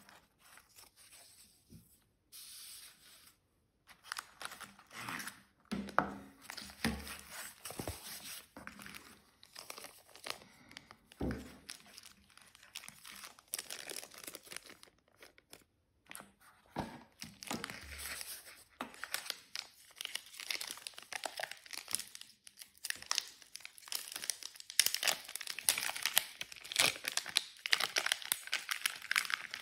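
Plastic packaging bags crinkling and rustling as they are handled and opened by hand, with a few soft thumps around the middle. The crinkling grows denser and louder over the last few seconds.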